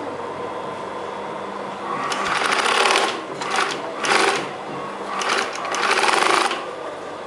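Typical TW3-series industrial sewing machine stitching in several short bursts, starting about two seconds in. Each run is a fast, even patter of needle strokes, with the machine's motor humming between runs.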